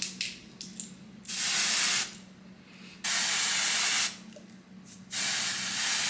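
Aerosol lace tint sprayed onto a wig's lace frontal: three hissing bursts of about a second each, with a few faint clicks before the first.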